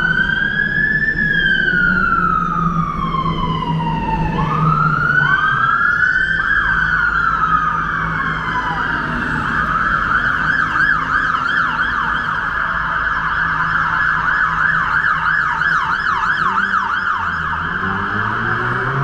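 Emergency vehicle siren close by: two slow rising-and-falling wails, then about six seconds in it switches to a rapid yelp that runs until near the end, when a slow wail starts again. Beneath it is a low steady hum of traffic.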